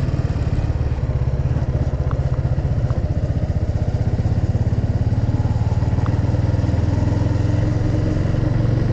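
Motorcycle engine running steadily while riding, with a fast even pulse. The engine note shifts slightly near the end, and there are a few faint clicks.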